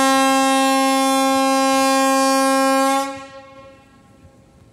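Railway locomotive signal sounding one loud, long, steady note that cuts off about three seconds in and dies away briefly.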